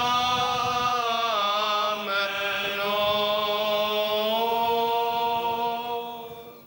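Byzantine liturgical chant: a slow, drawn-out sung melody over a steady held drone note, fading out near the end.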